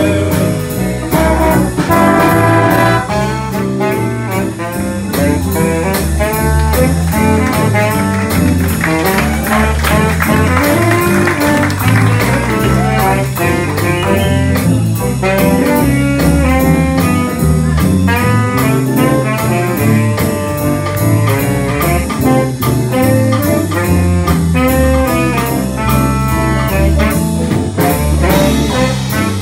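A high school big band playing jazz: trumpets, trombones and saxophones over a rhythm section keeping a steady beat.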